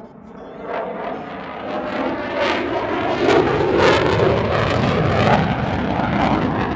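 F-22 Raptor jet flying by, its twin Pratt & Whitney F119 turbofan engines growing louder over the first few seconds into a loud, ragged crackling rush, then easing off near the end.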